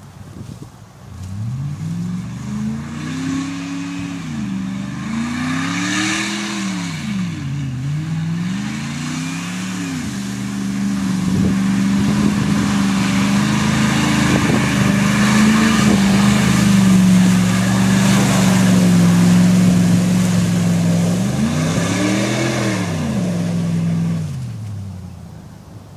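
Ford F-150 pickup engine through a Flowmaster dual turndown exhaust, revved up and down several times, then held at high revs for about ten seconds with a rushing noise as the rear wheels spin in slick mud. One more rev comes near the end, and then the sound fades as the truck moves off.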